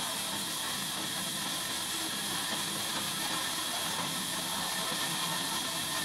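Band sawmill running with a steady hiss that holds level throughout, a few faint steady tones beneath it.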